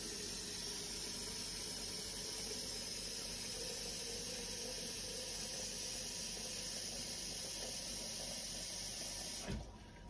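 Kitchen faucet running a steady stream of water into a percolator coffee pot as it is filled. The tap shuts off near the end.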